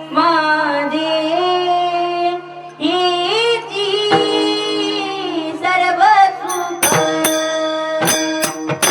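A solo voice singing a Marathi devotional abhang in long, ornamented held notes over a steady low drone. About seven seconds in, a rhythm of ringing percussion strikes joins the singing.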